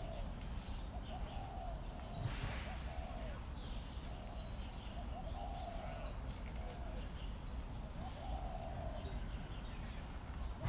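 Outdoor ambience: small birds chirping at intervals over a low, steady background hum.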